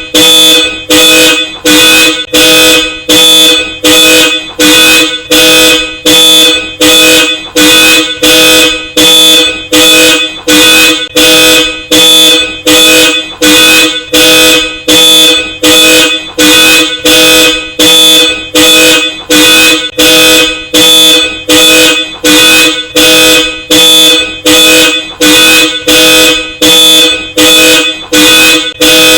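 Hella Supertone dual-tone car horns blaring in short, evenly spaced honks set off by a car alarm, about one and a half honks a second, steady and loud throughout.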